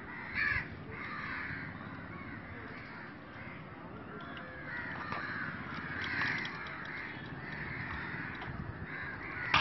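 Crows cawing repeatedly, harsh calls spaced irregularly, over the steady low rumble of a running stone crusher plant.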